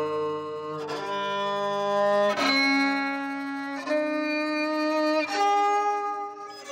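Ajaeng, the Korean bowed zither, playing a slow line of held notes, a new note about every second and a half.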